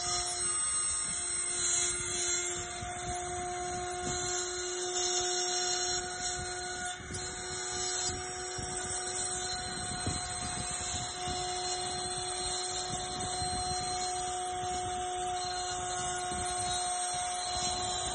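CNC router spindle routing a star outline into a wooden cylinder turned on the rotary axis: a steady whine with a constant rough cutting noise from the bit in the wood.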